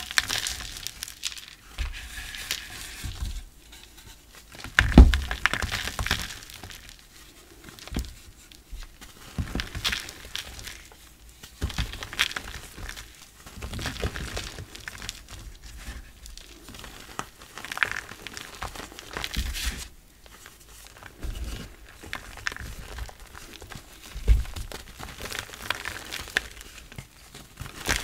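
Soft reformed blocks of gym chalk crushed and crumbled between bare hands, giving irregular bursts of crunching and crackling as the chalk breaks into powder. A few soft thumps come from chunks pressed down on the table.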